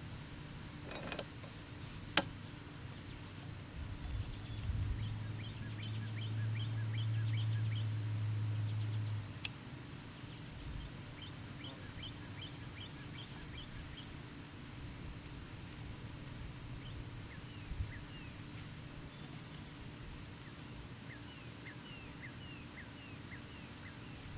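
Outdoor background of birds chirping in quick runs of notes, repeated several times, over a steady high-pitched insect drone. There is a sharp click about two seconds in, and a low hum for a few seconds that stops abruptly.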